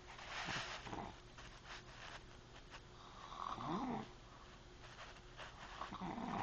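Snoring in deep sleep, one snore about every three seconds; the louder snores carry a pitch that rises and falls.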